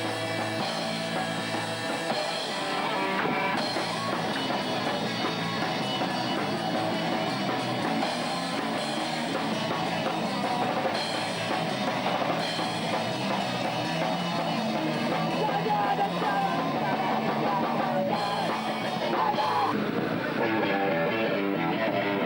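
Live punk rock band playing loudly, with drum kit and electric guitar, heard through a camera's microphone.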